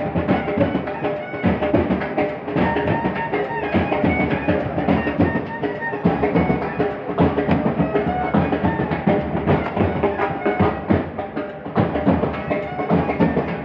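A live band playing a lively tune: a clarinet carrying the melody over a steady beat of drums.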